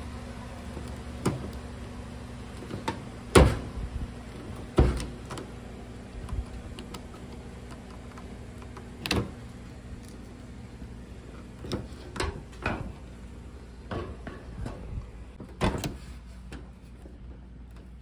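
Plastic wire-harness connectors being pressed at their tabs and wiggled off an LG dryer's control board, giving irregular sharp clicks and knocks, about ten in all, the loudest about three and a half seconds in.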